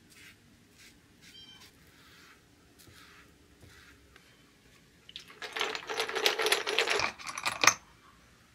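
Faint strokes of a foam brush wiping stain onto a wooden block, then about five seconds in a loud, rapid clatter of metal screws clinking against each other and a plastic tub for a couple of seconds.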